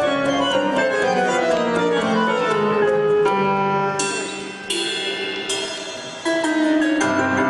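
Steinway grand piano playing a lively beginner's piece along with a recorded backing track. From about four seconds in, a bright, ringing high sound joins the music for a few seconds.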